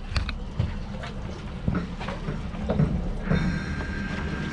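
A fishing reel on a bent rod working against a hooked fish: scattered ticks from the reel, then a steady high whine that sets in about three seconds in. Low wind and boat rumble lies underneath.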